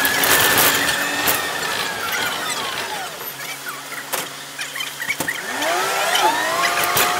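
City bus drivetrain whine. It falls steadily in pitch over the first three seconds as the bus slows, and a sharp knock comes about four seconds in. In the last couple of seconds the whine rises again and levels off as the bus pulls away.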